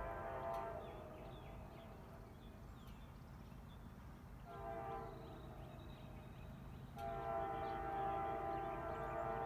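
Air horn of an approaching CSX ES44AH diesel locomotive, with the low rumble of the train underneath. There are three separate blasts: one cuts off just under a second in, a shorter one comes at about the halfway point, and a long one begins a couple of seconds before the end.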